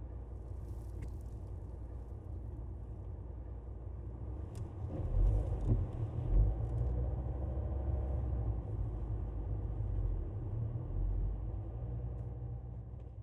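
Low, steady rumble of a car driving. It grows louder about five seconds in and fades away near the end.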